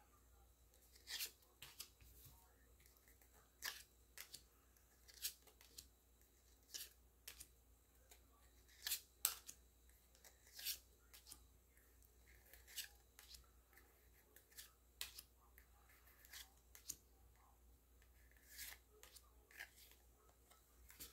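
Pokémon trading cards sliding against each other as they are moved one at a time from the front to the back of a small stack: faint, short swishes and flicks about once a second, with uneven pauses.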